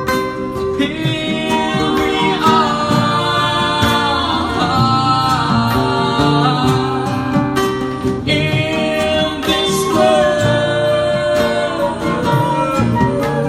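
Live acoustic guitar with a singing voice: a slow song with long held melody notes over the picked guitar.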